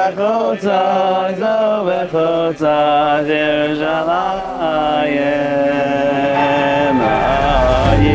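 Male voices singing a slow, chant-like melody with long held notes. A low rumble joins near the end.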